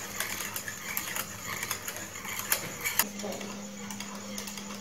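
Wire whisk clicking and scraping against an aluminium saucepan as a milk and cornflour mixture is whisked, with a steady low hum underneath that grows louder about three seconds in.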